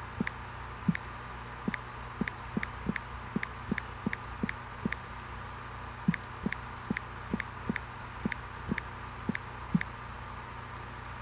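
Small water plops in a fish tank, about two or three a second at a fairly even pace, some louder than others, over a steady hum of fish-room equipment.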